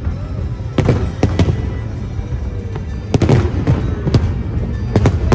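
Fireworks display: aerial shells bursting in quick clusters of sharp bangs, with a continuous low rumble beneath.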